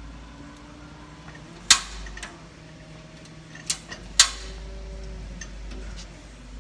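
Sharp metallic clicks from the push-and-turn gas control knobs of a stainless steel taco cart's burners as they are worked to light the flame: one a little under two seconds in, and two more around four seconds in, over a faint steady hum.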